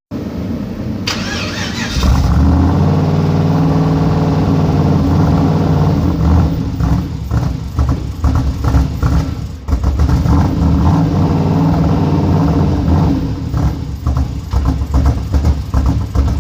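LS V8 engine cranked by the starter about a second in, catching at about two seconds and then running with a loud, low note whose level pulses unevenly through the second half. The engine has a vacuum leak.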